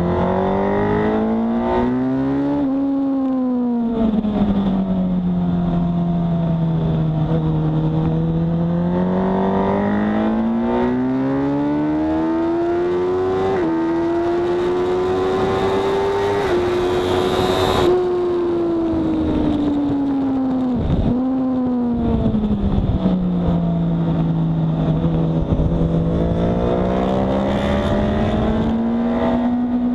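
Sport motorcycle engine at track speed, heard onboard over wind rush. The revs rise and fall through the corners, then climb steadily in steps through upshifts down the straight. They drop off when the throttle closes for braking, with a brief sharp dip about two-thirds through, then build again while leaning through the next corner.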